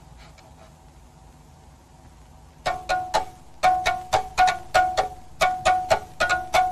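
Film score of plucked string notes. After a quiet start with a few faint plucks, a quick run of short, quickly fading notes begins about two and a half seconds in, about three a second, on a few repeated pitches.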